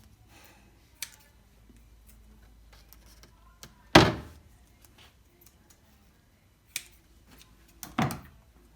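Sharp knocks and thuds of a cabinet shelf-slide grid being set in place and pressed against the cabinet side wall. There is a light tap about a second in, a loud knock about four seconds in, and two more knocks near the end.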